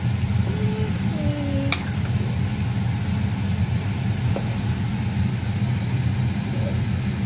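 A steady low droning hum from a running machine, unchanging throughout, with one faint click just under two seconds in.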